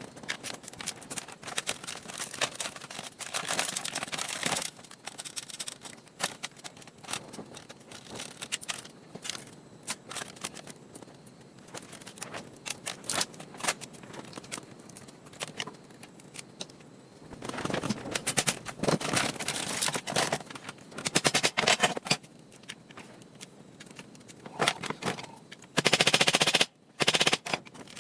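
Rapid clicks, rattles and knocks of a laptop's plastic and metal parts being handled and pried apart, coming in louder clattering spells.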